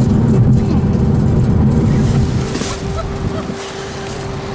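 Car driving at freeway speed, heard from inside the cabin: steady engine and road rumble. The rumble drops away about two and a half seconds in, leaving a quieter scene with a steady tone underneath.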